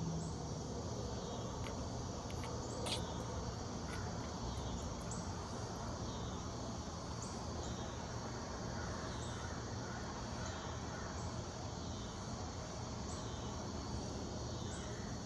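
Steady chorus of chirping insects such as crickets, with a couple of faint sharp clicks about three and four seconds in.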